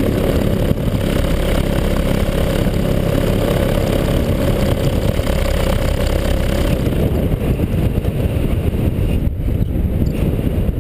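Paramotor engine running steadily with wind rushing past the microphone; about two-thirds of the way in the engine note drops away, as when the throttle is eased off for the landing approach, leaving mostly wind noise.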